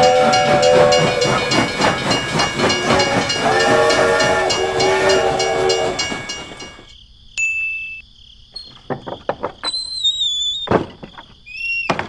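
Train horn sounding twice, a held chord of several tones, over clattering rail noise that cuts off about six and a half seconds in. After that, a steady high insect-like buzz with scattered clicks and a few short chirps.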